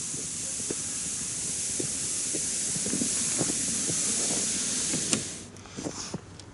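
A sled dragged over snow hisses steadily and grows louder as it comes closer, with boots crunching in the snow. The sliding stops suddenly about five seconds in, followed by a few light knocks.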